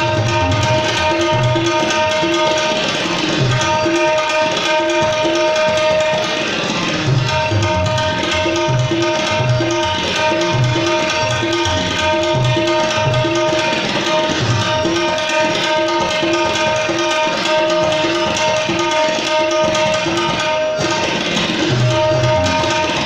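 Tabla solo in rupak taal: fast strokes on the tuned right-hand drum ringing at one steady pitch, with deep bass strokes from the left-hand drum, over a harmonium repeating a short lehra melody.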